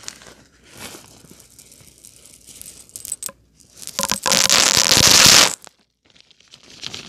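A plastic bag rustling and crinkling as it is handled. About four seconds in, a bagful of small pebbles is poured onto a shag carpet: a dense rattle lasting about a second and a half that cuts off suddenly.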